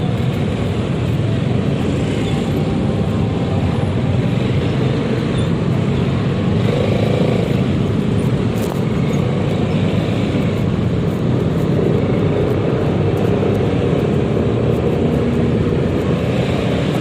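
Steady riding noise of a Yamaha XMAX 300 scooter moving through city traffic: its engine running under way with surrounding traffic in a constant low rumble.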